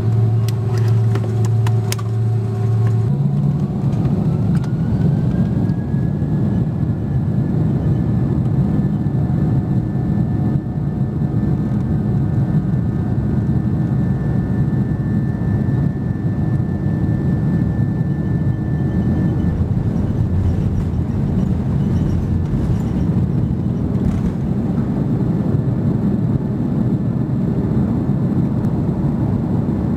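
Airbus A330-300's turbofan engines spooling up to takeoff thrust about three seconds in: a whine rises and then holds steady over a loud, even roar through the takeoff roll, heard inside the cabin over the wing. The whine fades a little past the middle as the roar carries on.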